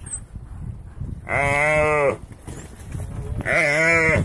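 A gemsbok oryx bellowing in distress as wild dogs bite into it: two long, moaning, moo-like calls about two seconds apart, over the scuffling of the pack.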